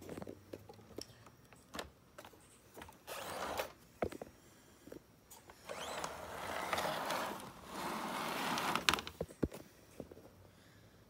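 Model train locomotive rattling and clicking on plastic track in short bursts, with sharp clicks between them.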